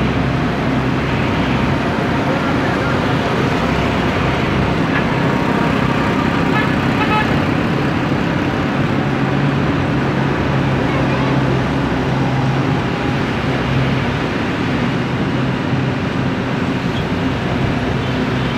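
Steady engine drone and road noise heard from inside a moving vehicle on a wet road. A low engine hum under it grows stronger in the middle.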